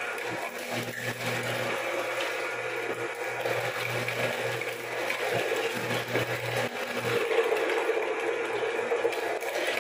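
Electric meat grinder running, grinding raw chicken heads: a steady motor hum under an uneven grinding churn.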